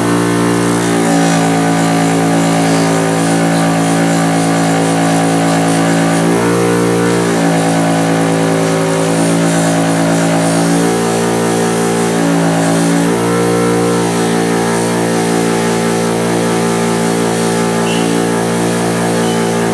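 Electric polishing machine running a 2000-grit polishing wheel with a steady motor hum. Its tone shifts briefly a few times as the steel pliers are pressed against the spinning wheel to polish them.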